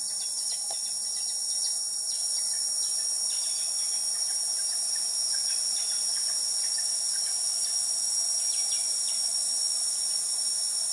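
Dense tropical forest insect chorus: a continuous high-pitched shrill drone holding one strong steady tone, with a few faint short chirps scattered through it.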